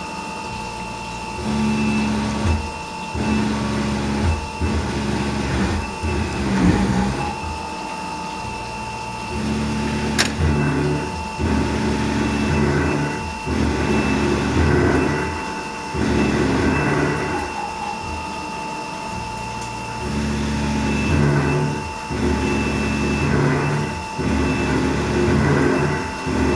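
Mikini 1610L CNC mill cutting 6061-T6 aluminium with a 3/16-inch flat end mill under flood coolant, at full feed. A steady high whine runs throughout, under a lower motor hum that changes pitch in steps every second or two as the table moves around each hole. There is a single sharp click about ten seconds in.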